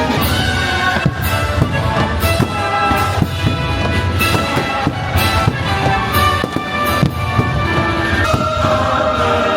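A fireworks show: the show's music plays with sustained tones throughout while fireworks burst at irregular intervals, roughly one a second.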